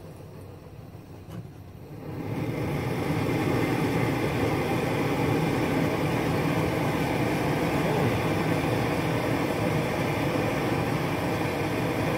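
MSR XGK EX expedition stove with a noise-damper cap fitted, its burner at first running softly on a low flame. About two seconds in the flame is turned up and the burner noise rises to a loud, steady rushing that holds.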